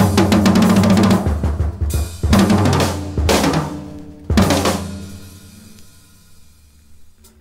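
Jazz drum kit (Sonor drums, Paiste cymbals) playing four loud fills of rapid drum strokes and crashing cymbals in the first five seconds, each ringing away, the last fading out slowly. A low sustained note sounds underneath.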